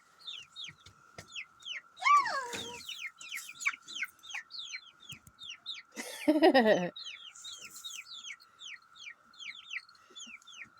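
Young chickens peeping in quick, short falling chirps, with two louder squawks, one about two seconds in and one about six seconds in, over the steady drone of a cicada chorus.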